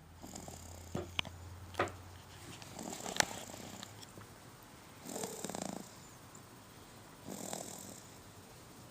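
Snoring: slow, rough, fluttering breaths that come about every two and a half seconds, with a few sharp clicks in the first few seconds.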